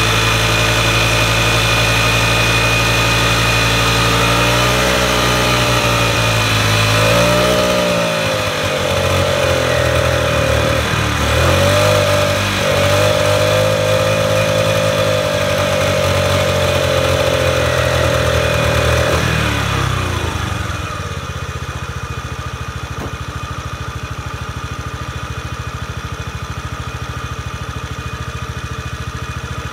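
Honda Today scooter's small four-stroke engine heard at the muffler, revved up and held at raised revs for about fifteen seconds with a brief dip partway, then falling back to a steady idle for the last ten seconds. The engine is being revved to test whether it now picks up: it had been failing to rev freely, put down to carbon build-up.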